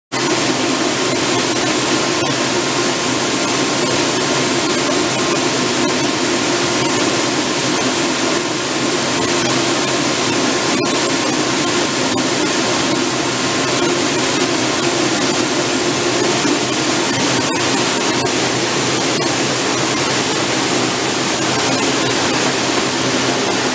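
Steady loud rushing noise with a faint steady hum in it, starting abruptly and never changing.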